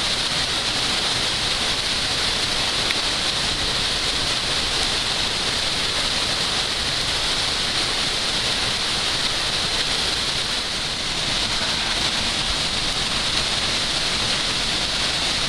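Waterfall in heavy flow pouring down a narrow rock chute close by: a steady, unbroken rush of water.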